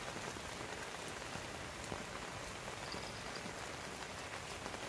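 Steady rain falling: an even hiss made of many small drop ticks.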